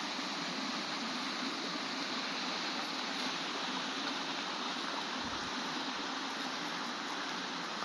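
Steady rush of a flowing stream, with a brief low thump about five seconds in.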